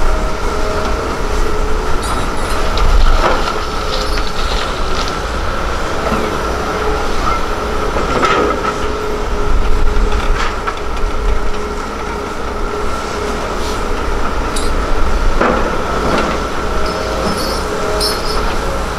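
Hitachi Zaxis 330LC hydraulic excavator's diesel engine and hydraulics working under load, with a steady whine. A few crashes of soil and rock dropping into a dump truck's steel bed.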